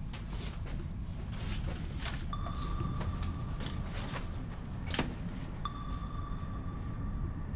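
Film sound design: a low rumbling drone with scattered soft clicks and knocks. About two seconds in, a high electronic tone sounds and holds for about two seconds, then comes back for the last two seconds. A sharp knock lands about five seconds in.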